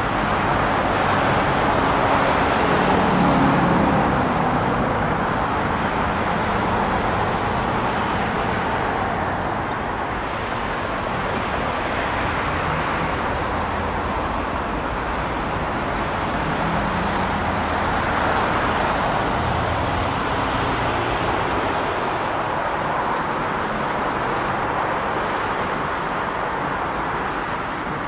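Steady roar of dense expressway traffic: tyre noise and engines of many cars and trucks passing together. The deeper hum of heavier vehicles swells about three seconds in and again around seventeen seconds.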